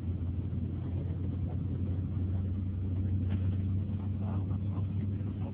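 Steady low rumble of a moving bus heard from inside the passenger cabin: engine and road noise.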